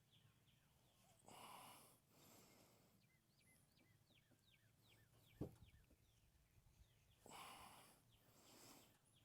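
Near silence, broken by a person breathing out heavily twice, once near the start and once near the end, and a single sharp tap about halfway through. A bird calls faintly in the background with a run of short, falling whistled notes.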